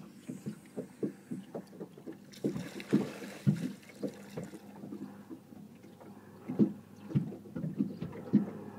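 Water lapping against a boat's hull in irregular soft knocks and slaps, over a faint steady hum.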